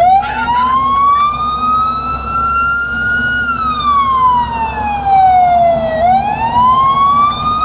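Emergency vehicle siren sounding a slow wail, heard from inside the vehicle. The pitch rises for about three seconds, falls for about two and a half, then rises again, over a steady low rumble of engine and road.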